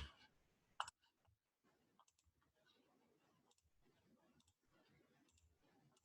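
Near silence with a few faint clicks; one sharper click just under a second in.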